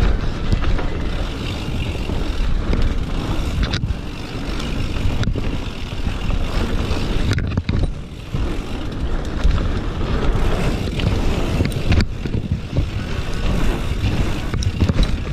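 Mountain bike riding down a dirt singletrack: a constant low rumble of wind on the microphone and tyres over the trail, with the bike rattling and several sharp knocks from bumps.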